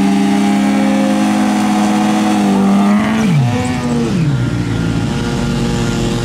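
Kawasaki ZX14's inline-four engine held at high, steady revs during a pre-race burnout, spinning the rear tyre. About three seconds in the revs drop away, rise and fall once more in a short blip, and settle to a lower, steady note.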